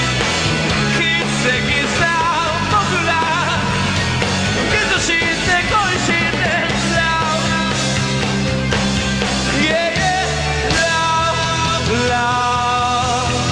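Live rock band playing a song, drums and amplified instruments under a lead singer's vocals, with some long held vocal notes near the end.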